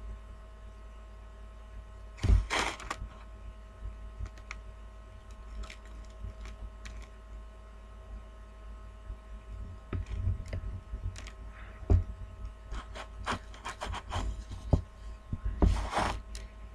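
Small dogs moving about in a plastic bin lined with plush bedding: scattered rustling and scratching, with a few louder knocks about two seconds in, near the middle and near the end.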